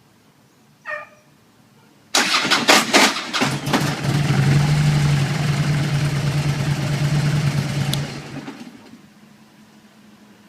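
Harley-Davidson motorcycle being started with an abnormal-sounding start. About two seconds in, a loud, irregular clatter lasts about a second and a half, then gives way to a steady humming run that fades away near the end.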